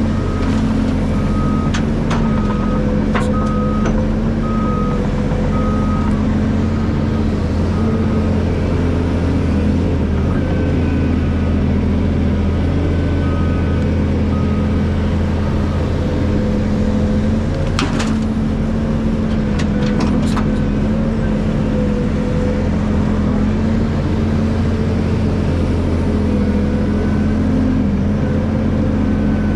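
Hydraulic excavator's diesel engine running steadily under working load. A backup alarm beeps about once a second for the first six seconds or so. A few sharp knocks come about two, three, eighteen and twenty seconds in.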